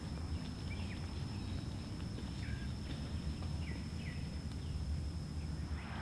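Outdoor background: a steady low rumble with a few short bird chirps scattered through it and a thin, steady high whine.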